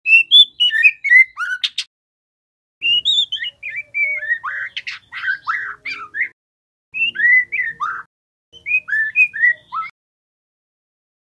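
Young white-rumped shama singing: quick phrases of clear whistled notes that slide up and down, mixed with short chirps. The song comes in four bursts with brief pauses between them.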